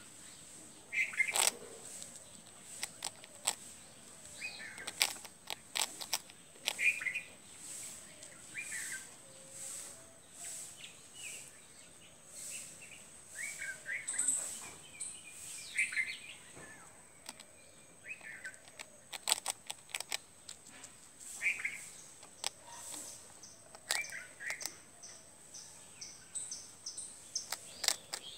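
Birds chirping on and off in short calls, over scattered sharp clicks and a steady high-pitched whine.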